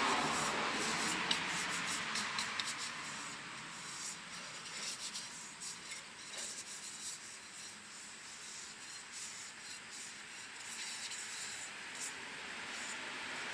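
Hands handling the engine's air cleaner parts: a scratchy rubbing with scattered small clicks and taps, louder in the first few seconds and then softer.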